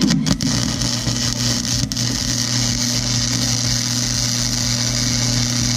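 Flux-core wire-feed welder arc on exhaust-manifold steel: the arc strikes with a sharp crack and then sizzles and crackles steadily, with the welder's transformer humming underneath.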